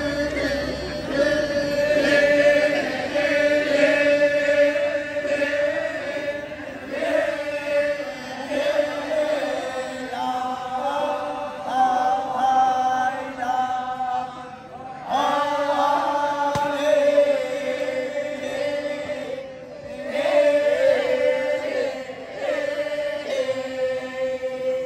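Torajan badong funeral chant: a group of voices chanting together in long held notes that shift slowly in pitch, in phrases broken by short breathing gaps.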